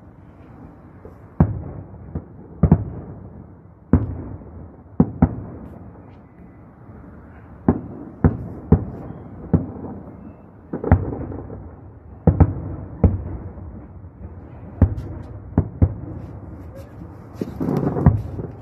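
Aerial fireworks bursting: a string of sharp bangs at irregular spacing, about one a second, each trailing off briefly over a steady low rumble.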